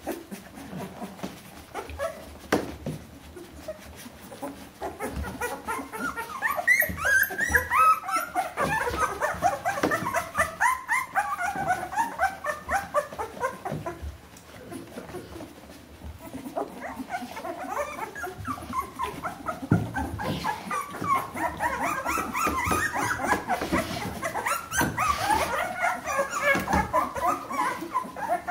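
Litter of two-week-old Bernese Mountain Dog puppies squeaking and whimpering in many short, overlapping high calls. The calls are sparse for the first few seconds, then crowd together, ease off briefly about halfway through, and pick up again.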